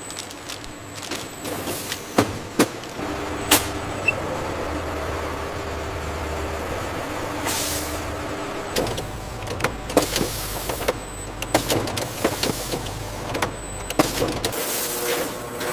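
Automated factory machinery running: a steady low motor hum under many sharp mechanical clicks and clacks, busiest in the second half.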